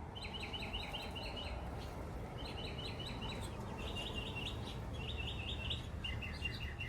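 A small songbird singing: five bouts of quick, evenly repeated high notes, with short pauses between them, over a steady low background rumble.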